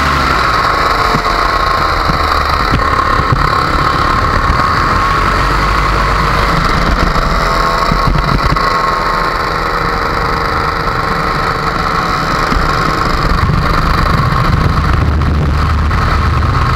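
Paramotor engine and propeller running steadily in flight, the pitch rising and falling slightly.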